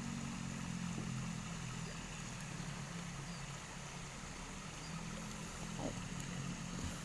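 A small engine running steadily with a low, even hum.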